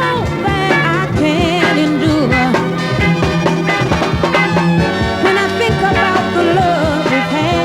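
Northern soul record playing: upbeat music with a steady beat and a wavering melody line.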